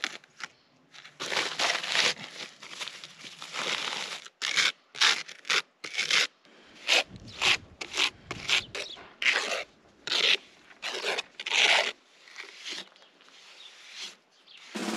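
Trowel scraping and spreading wet refractory cement mortar over bricks, in repeated short, uneven strokes.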